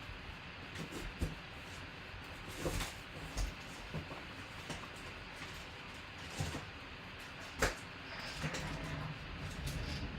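Trading cards and their packaging being handled: scattered light clicks, taps and rustles over a steady background hiss.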